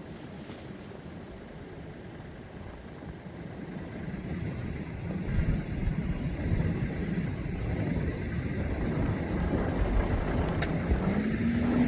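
A motor engine running, growing louder from about four seconds in, with a low rumble. Its pitch rises a little near the end and then holds steady.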